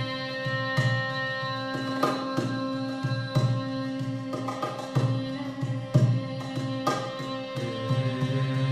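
Hand drum played in a loose, uneven rhythm of low strokes and sharper slaps over steady, sustained ringing tones, in a meditative sound-therapy performance.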